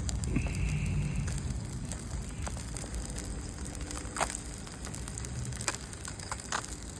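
Fish frying in hot oil in a pan over a portable propane grill: steady sizzling with scattered sharp pops and crackles, the loudest about four seconds and five and a half seconds in.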